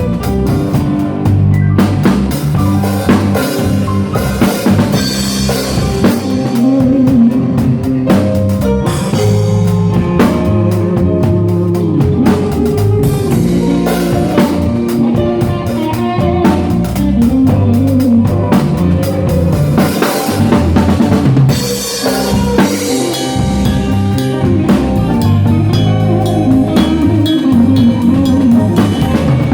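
A band playing at full level: drum kit with snare rimshots and bass drum driving the beat under bass and guitar, with a lead melody that slides up and down in pitch.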